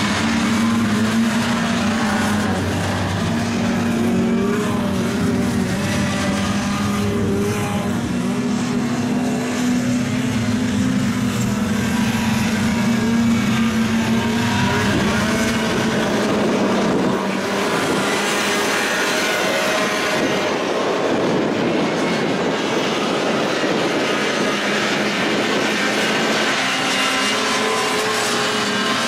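Engines of 6x6 ATVs racing, several machines running hard, their drone wavering in pitch as they accelerate and pass. About two-thirds of the way through the steady drone thins and a harsher noise takes over for several seconds before the engine tone returns near the end.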